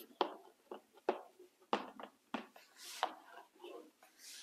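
White chalk writing on a green chalkboard: a series of sharp taps about every half second as letters are struck onto the board, with a few longer scraping strokes.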